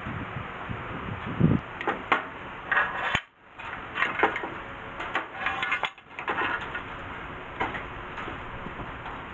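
Metal clinking and knocking as tools and steel parts are handled: a series of irregular sharp knocks and short scrapes over a steady hiss.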